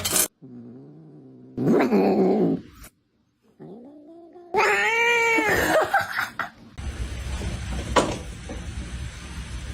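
A cat yowling: a short yowl, then a longer drawn-out one that rises and falls in pitch. A single sharp click comes near the end over a low background hum.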